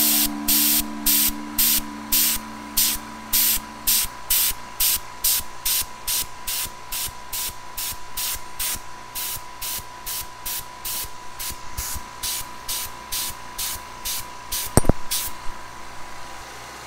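Airbrush spraying paint in short repeated bursts, two to three a second, as the trigger is pulled and released again and again; the bursts stop about fifteen seconds in. A faint steady high tone runs underneath.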